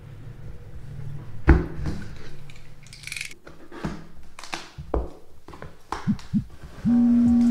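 Paperboard box being slit along its edge with a utility knife and pulled open by hand: scraping, rustling and several knocks of the packaging, the loudest knock about a second and a half in. Near the end a steady low musical note comes in.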